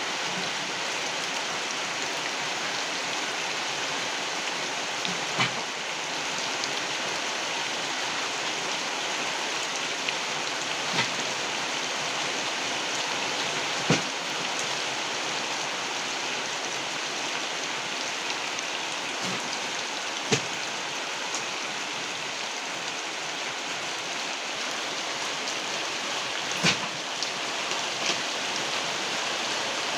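Heavy rain pouring steadily, with a sharp, louder drip striking a surface now and then.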